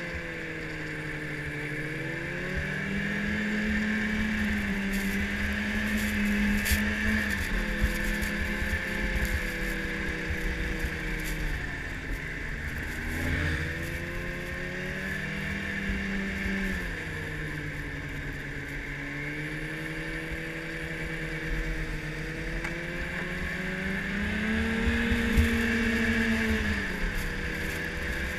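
Yamaha snowmobile engine running up close under the rider, its pitch rising and falling several times as the throttle is opened and eased, with a steady higher whine over it throughout.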